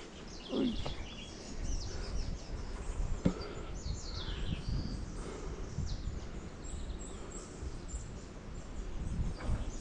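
Several small birds chirping and calling over and over, over a steady low rumbling background noise.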